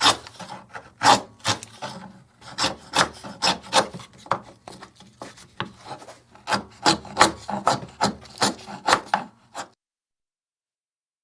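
Wood being carved by hand with a blade: quick, irregular cutting and scraping strokes into the wood, a few to several a second. The strokes stop abruptly about ten seconds in, leaving dead silence.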